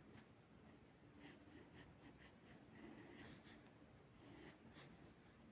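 Faint pencil scratching on paper, in short irregular strokes over a low room hum.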